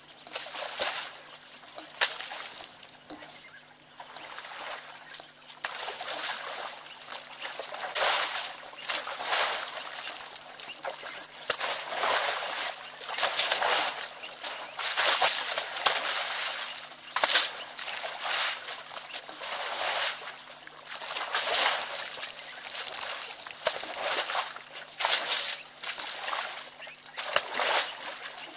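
African elephant wallowing in a mud hole, its trunk churning and slopping wet mud and water in repeated, irregular splashes.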